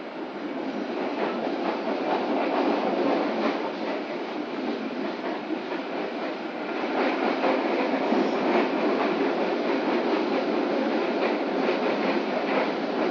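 Passenger train running at speed, heard from inside the coach: a steady rumble and rattle of wheels on the track with faint clicks over the rails, growing louder about a second in and again around seven seconds in.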